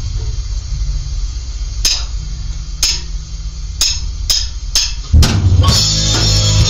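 A drummer counts in on a drum kit with about five sharp clicks over a steady low hum, the last three coming quicker. Then, about five seconds in, the drums and the rest of the band kick in loud, playing heavy metal.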